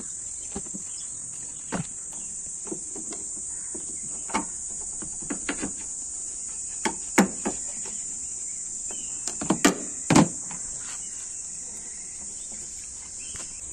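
Scattered clicks and knocks of pliers working a spring hose clamp and a rubber coolant hose being worked off the radiator of a Maruti Suzuki WagonR, the loudest about seven and ten seconds in, over a steady high-pitched hiss.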